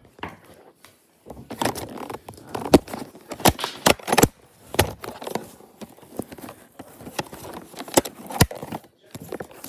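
Rustling and rubbing handling noise from a phone being moved around, broken by a scatter of sharp knocks and clicks.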